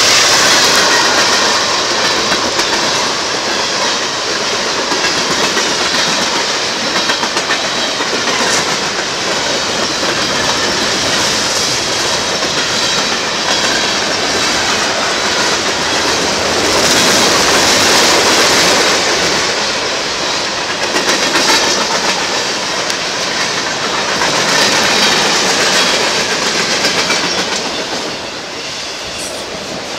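Freight train cars rolling past close by: the steady rumble and clickety-clack of steel wheels on the rails, easing off a little near the end.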